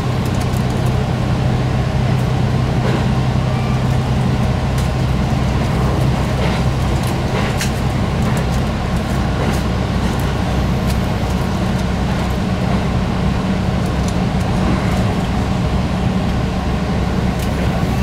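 JR Hokkaido KiHa 183 series diesel railcar running at speed, heard from inside the front car: steady diesel engine hum over the rumble of wheels on rail. Past the middle the low engine hum gives way to a higher steady note.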